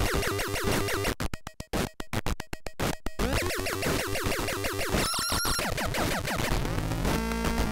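Hand-built noise machine making glitchy electronic noise: rapid falling pitch sweeps, a stretch of fast sharp clicks about a second in lasting some two seconds, then a brief steady high tone about five seconds in.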